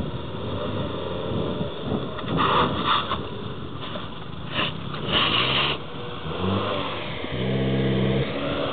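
Renault Duster SUV's engine pulling under load as it crawls over a rock step, revving up about six and a half seconds in and held at higher revs for about a second. Short bursts of noise come about two and a half and five seconds in.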